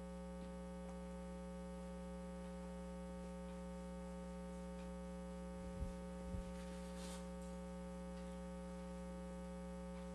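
Steady electrical mains hum with many even tones, with two soft low thumps about six seconds in.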